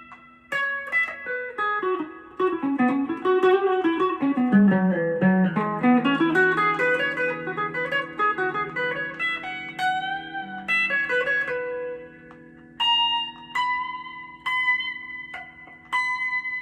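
Strat-style electric guitar with Fender Noiseless pickups, switched to its top pickup position and played through a Boss Katana amp: a quick run of single picked notes that falls and climbs again, then slower notes left to ring, with high notes near the end.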